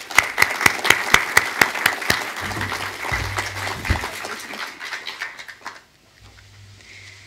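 Audience applauding, with loud sharp claps close by at first, thinning out and dying away about six seconds in. A low thump comes about three to four seconds in.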